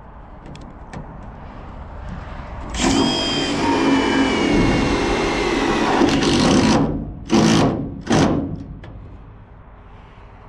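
Makita cordless impact driver driving self-tapping screws into a camper's roof edge: one long run of about four seconds with its whine slowly falling, then two short bursts a second apart as screws seat.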